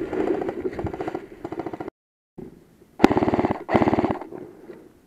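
Airsoft electric gun firing two short full-auto bursts about three seconds in, a fast even rattle of shots. Before them there is clattering movement noise and a brief total cut-out of sound.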